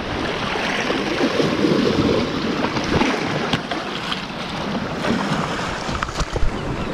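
Sea swell washing and sloshing against the rocks at the water's edge, a steady rushing noise with some wind on the microphone.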